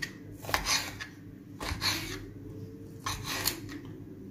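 Knife cutting through chunks of boiled sheep's offal, the blade rasping and scraping against a ceramic plate in a few separate strokes.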